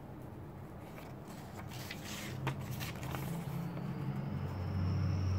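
Quiet handling of thin vellum paper sheets, a few light rustles and taps, over a low hum that grows louder from about halfway through, with a faint high whine joining near the end.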